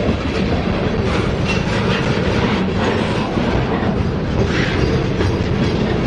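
Freight train cars rolling past at close range: a steady rumble of steel wheels on rail with clickety-clack as the wheels pass over rail joints.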